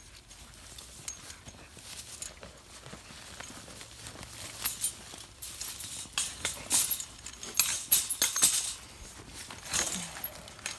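Wire cage and metal cable catch pole rattling and clinking in scattered bursts as a coyote is forced into the cage. The bursts are loudest and most frequent from about halfway through.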